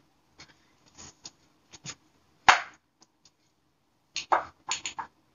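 Perfume bottles being handled and set down on a small table: a scatter of short clicks and knocks, one sharp knock about two and a half seconds in and a quick cluster near the end.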